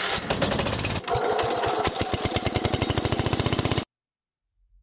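Tractor engine running with a rapid, even firing beat that shifts about a second in, then cuts off suddenly near the end.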